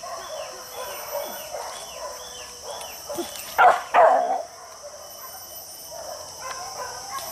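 Hunting dogs barking, two loud barks close together about three and a half to four seconds in, over a steady high drone of forest insects.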